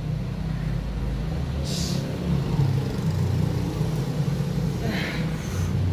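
A motor vehicle engine running with a steady low rumble, with a few brief hisses about two seconds in and near the end.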